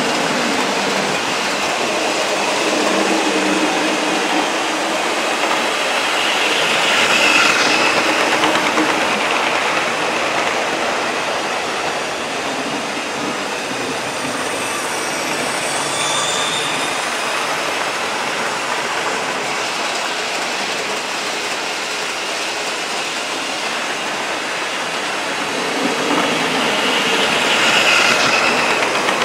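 OO gauge model trains running on the layout's track: a steady whirring rattle of motors and wheels that swells as a train passes close by, about seven seconds in and again near the end, with a brief high squeal of wheels about halfway.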